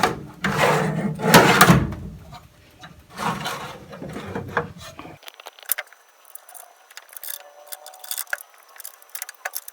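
A few rough scraping strokes, like a file worked over metal, in the first two seconds, then scattered light clicks and taps of small hand tools and hardware being handled.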